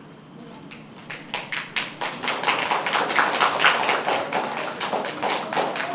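Hand clapping from a group: a few scattered claps about a second in build into dense applause, which thins out near the end.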